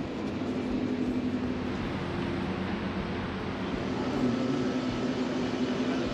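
A steady mechanical drone with a constant low hum, even in level throughout.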